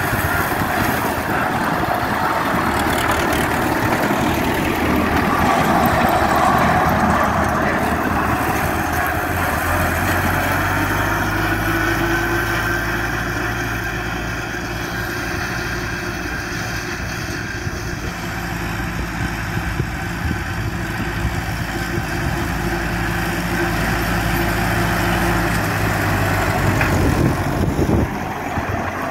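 MTZ-50 tractor's four-cylinder diesel engine running steadily under load as it drives an RK-185 rotary mower through a lucerne crop.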